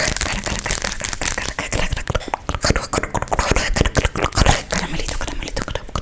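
Fast ASMR mouth sounds close to the microphone: a rapid string of wet clicks, pops and smacks with no words.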